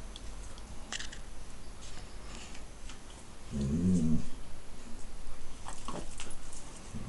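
Two dogs play-wrestling: one gives a short low growl about halfway through and another brief one at the end, amid scattered light clicks and scuffles.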